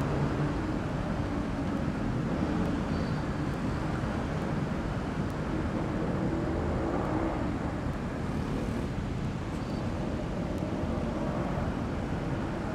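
Steady road traffic noise: car and van engines running and tyres on the road as vehicles cross an intersection, a continuous low rumble with engine hums rising and fading as vehicles pass.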